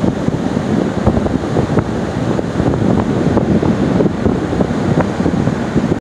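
Wind buffeting the microphone in steady, uneven gusts, a loud low rumble.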